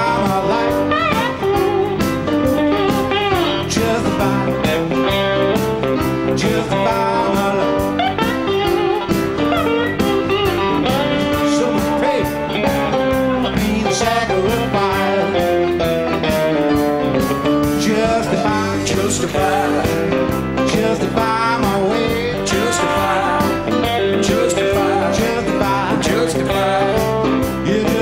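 Live blues-rock band playing: an electric guitar leads with bent, wavering notes over bass, drums and keyboards.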